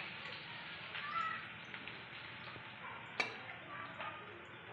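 A metal ladle stirring egg curry in a kadai over a steady simmering hiss, with one sharp clink of metal on the pan about three seconds in. A brief faint high-pitched call sounds about a second in.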